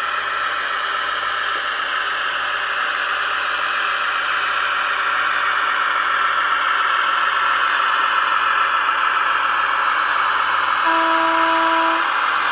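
Model locomotive with a digital sound decoder running: a steady engine sound and whir from the small speaker and drive, its pitch slowly sinking. A brief steady tone, like a horn signal, sounds about eleven seconds in.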